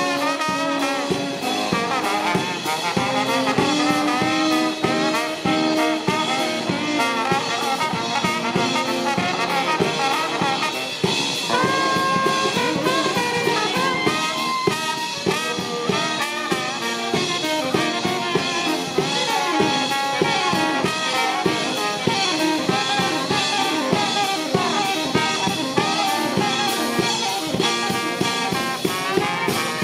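Music: brass instruments playing a jazzy tune over a drum kit.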